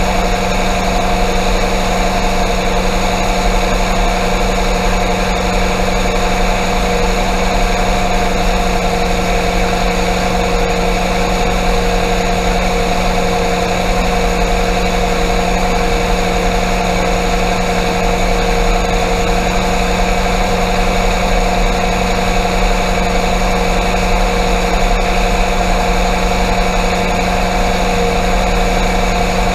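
Combine harvester running steadily in the corn, its engine and machinery giving an even drone with a constant hum and whine.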